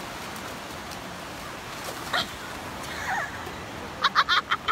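Steady wash of surf and wind on a beach. Near the end comes a rapid run of short, high-pitched cries, the loudest sound here.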